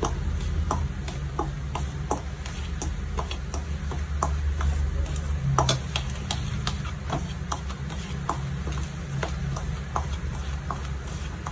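A metal spoon clicking and scraping against a stainless steel bowl while shortening and powdered sugar are creamed together, irregular ticks about two a second. A steady low hum runs underneath.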